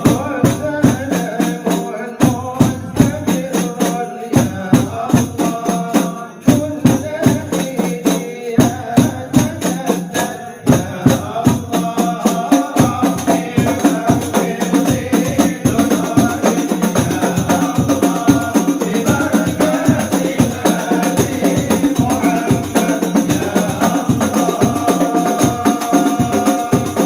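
Rebana frame drums beating a fast, steady rhythm under group singing of a sholawat, a devotional song in praise of the Prophet.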